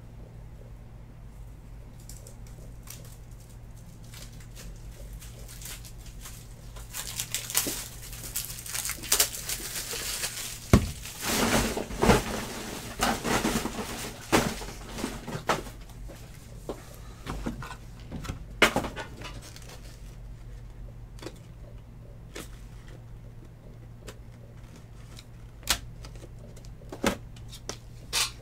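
Plastic card supplies being handled: crinkling and rustling for several seconds about a third of the way in, with scattered clicks and taps before and after.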